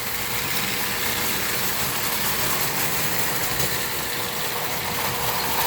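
Several O gauge tinplate toy trains, including Marx Commodore Vanderbilt locomotives, running together on metal track: a steady whir of electric motors and wheels on the rails.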